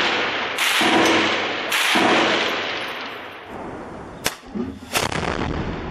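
Loud gunshots echoing among buildings, with two more in the first two seconds and a long echo dying away slowly; two short sharp cracks come about four and five seconds in.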